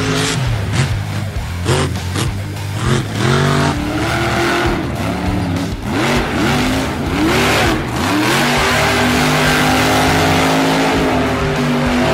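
Electric brushless motor of an RC monster truck whining, its pitch sweeping up and down as the throttle is blipped, with a few sharp thumps in the first few seconds; in the last third the whine holds at a steady pitch.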